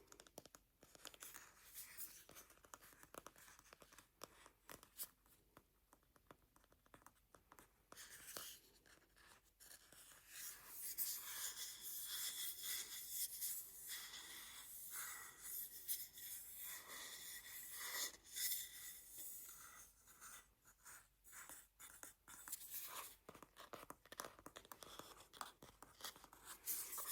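Close-miked scratching and tapping on a wooden bowl: quick, faint strokes and clicks that grow denser and brighter from about eight seconds in, easing off again a few seconds before the end.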